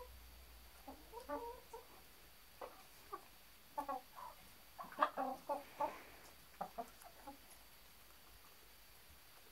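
Domestic hens clucking in short, quick runs of clucks, busiest and loudest in the middle few seconds.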